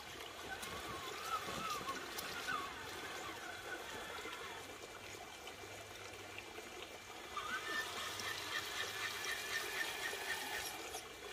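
Creek water splashing and trickling as a Traxxas Summit RC truck wades through it, with the whine of its electric motor rising and falling with the throttle.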